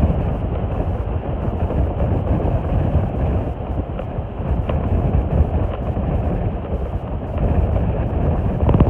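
Strong wind buffeting the microphone, a steady low rumble that swells and eases, with sea waves washing on the shore beneath it.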